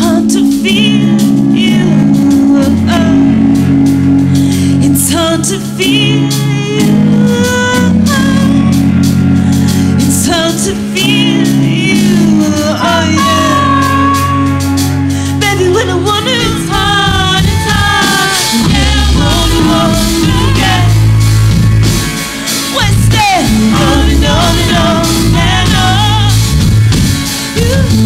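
Live rock band with women singing lead and harmony over electric guitar and band backing. The sound grows fuller and busier about halfway through.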